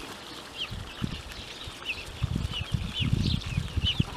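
Young chicks peeping, short high chirps about twice a second, with low, rough bursts of sound in the second half.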